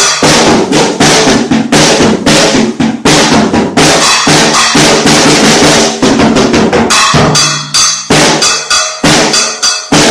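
A drum kit played loud and busy, a dense run of drum and cymbal hits that thins into more spaced-out strokes in the last three seconds.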